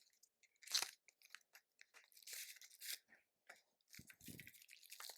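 Faint rustling and clicking of a phone case's packaging being opened by hand: short scratchy crinkles and small clicks, the loudest just under a second in.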